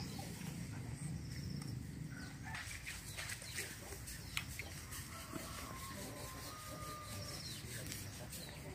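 Faint farmyard ambience: a chicken clucking a few short times in the second half, over a steady low rumble and scattered faint clicks.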